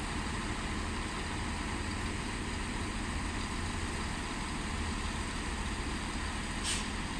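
Class 170 Turbostar diesel multiple unit idling at the platform: a steady low hum of its underfloor diesel engines.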